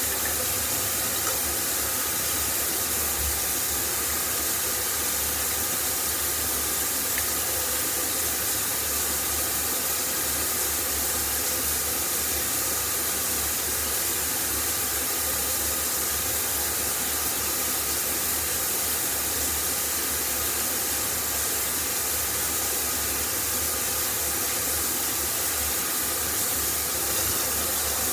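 Water running steadily from a tap, an unbroken hiss.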